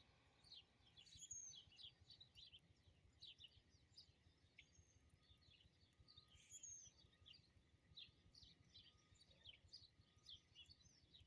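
Several small songbirds chirping, faint: a steady scatter of short, quick notes, with an occasional higher drawn-out whistle.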